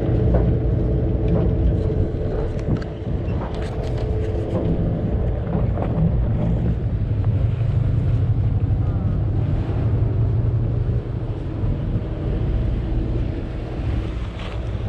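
Sportfishing boat's engine running steadily with a low, even hum, with a few light knocks around four seconds in and near the end.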